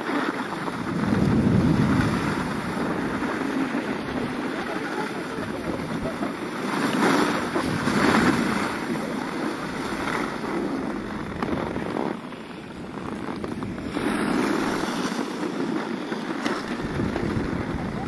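Skis sliding and scraping over groomed, packed snow, a continuous rushing hiss that rises and falls in long swells, mixed with wind buffeting the microphone.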